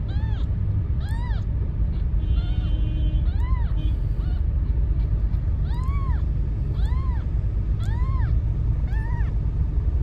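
Kitten meowing repeatedly, about eight high-pitched calls roughly a second apart, over a loud steady low rumble.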